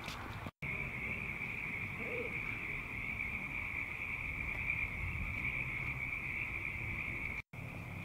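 A large chorus of frogs calling all at once, a steady high-pitched unbroken trill from frogs that have come up out of the mud after heavy rain. A low rumble runs underneath. The sound drops out for an instant about half a second in and again near the end.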